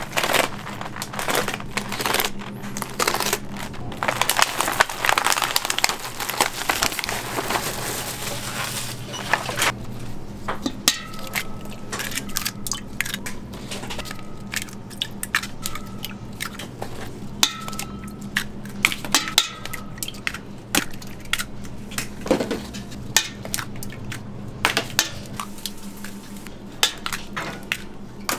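Plastic film on egg trays crinkling as it is cut and pulled open with scissors. After that comes a long run of sharp knocks as eggs are cracked one after another on the rim of a stainless steel stockpot, some knocks leaving a brief ring from the pot. A steady low hum runs underneath.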